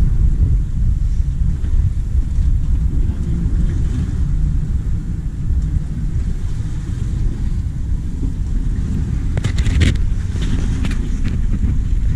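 Wind buffeting the microphone: a steady low rumble, with a few brief clicks and rustles about ten seconds in.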